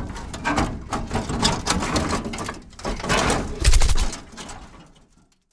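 Logo intro sound effect: rapid stuttering digital glitch crackles and buzzes, with a deep boom a little under four seconds in, fading out just before the end.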